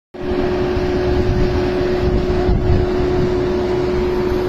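Tractor engine running steadily: a low rumble with a constant whine over it.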